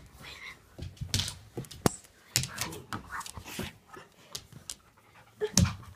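A dog panting close by in short, quick breathy bursts, with a single sharp click a little under two seconds in.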